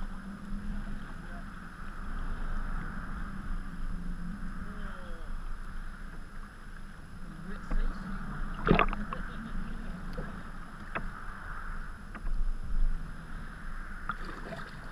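Sea kayak being paddled through choppy water: paddle blades dipping and splashing alongside and water washing against the hull, with one sharp, louder splash about nine seconds in and a few lighter knocks a couple of seconds later.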